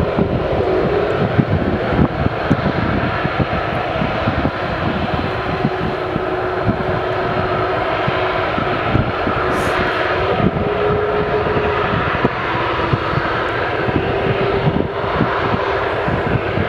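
Boeing 747 freighter's four jet engines running at high power before takeoff: a loud, steady rumble with a held whine.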